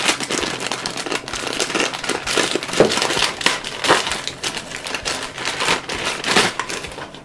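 Clear plastic polybag crinkling as hands pull it open and handle the flat toy pieces inside, an irregular run of crackles with a few louder snaps about three, four and six and a half seconds in.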